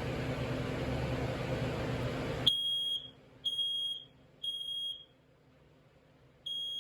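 First Alert SA304 smoke alarm sounding on test: a high-pitched beep three times, each about half a second, starting about two and a half seconds in. After a pause, the next set begins near the end, in the standard three-beep alarm pattern. Before the beeping there is a steady hiss.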